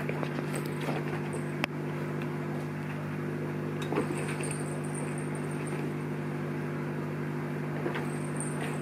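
Bengal kittens scrambling over a cat scratcher and its spring-wire wand toys: light taps and rustles, with one sharper knock about a second and a half in. Under it runs a steady low mechanical hum, and a faint high whine comes in about four seconds in and again near the end.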